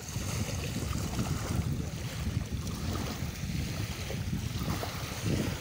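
Wind buffeting the microphone in an uneven low rumble, over the hiss of small waves lapping at a lake shore.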